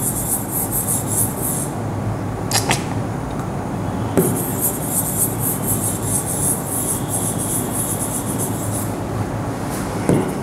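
Writing on a board: two spells of fast scratchy strokes with a couple of light knocks between them, over a steady background hiss.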